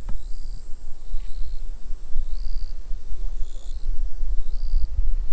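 Outdoor ambience: a steady low rumble, with a short high-pitched insect call of about half a second repeating roughly every two seconds.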